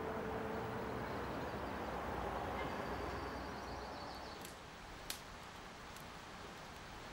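A steady rushing background noise that drops in level about four and a half seconds in, leaving a quieter background with a few sharp clicks.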